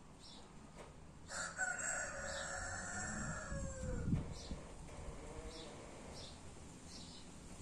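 A rooster crowing once, a long call of about two and a half seconds that starts a little over a second in and falls in pitch at the end. Short high chirps from a small bird repeat throughout.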